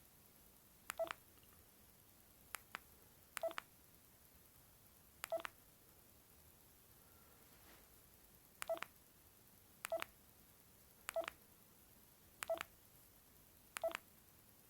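Bird S296 mobile phone keypad beeps: about eight short key tones a second or two apart, irregularly spaced, as the keys are pressed to move through the phone's menu, with two fainter clicks close together early on.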